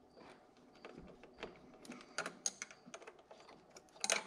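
Light, irregular clicks and ticks of a screwdriver and small metal parts at a throttle body as the throttle position sensor's mounting screws are worked. The loudest cluster of clicks comes near the end.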